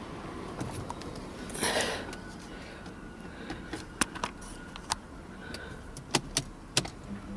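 A brief rustle, then a few sharp, irregularly spaced clicks from the car's controls and keys being handled as the newly replaced light switch, flashers and brakes are tested.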